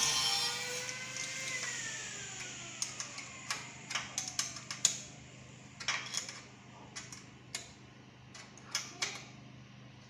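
A small motor's whine falls in pitch and dies away over the first couple of seconds. Then a steel spanner clicks and clinks irregularly against a bolt and the steel bracket as the bolt is tightened, about a dozen sharp metal clicks.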